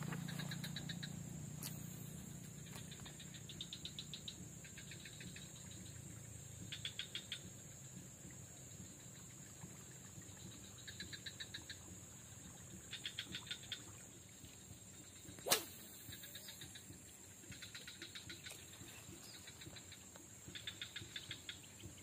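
Faint swamp wildlife calling: short rattling trills, each well under a second, repeating every second or two over a steady high thin whine. One sharp click about two-thirds of the way through.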